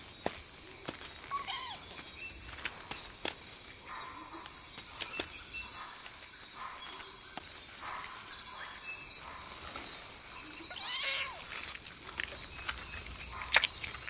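Tropical forest insect chorus at night: a steady high-pitched trilling of crickets, with scattered faint short chirps and a few faint clicks.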